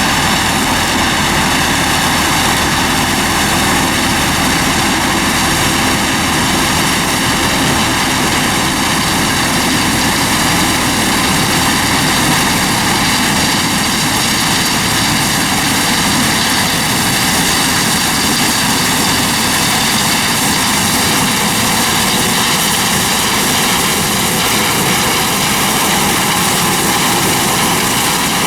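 Heavy farm machinery running steadily during corn harvest: a loud, unchanging engine drone with a layered hum.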